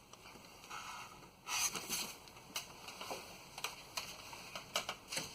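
Motor oil being poured from a plastic quart bottle into the engine's oil filler, a noisy gurgling pour that grows louder about a second and a half in. Irregular sharp clicks and knocks of the plastic bottle being handled run through it.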